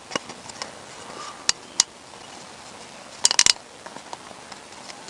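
Hands working a new rubber O-ring onto a plastic oil filter housing cap: a few short sharp clicks, two about a second and a half in and a quick cluster a little past three seconds.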